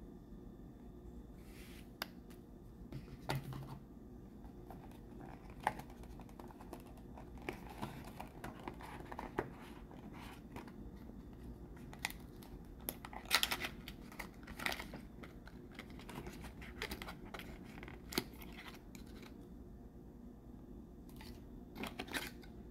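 Cardboard and paper packaging handled by hands: scattered rustles, scrapes and small clicks as sleeve, box and insert are moved. The loudest rustles come a little past the middle, with a short cluster near the end, over a faint steady low hum.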